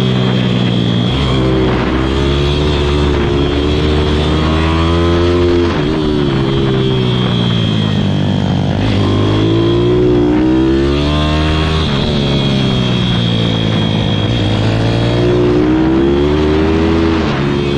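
Pit bike's single-cylinder engine heard from on board, revving up hard and then dropping back, about five times, as the rider accelerates out of corners, shifts and brakes into the next.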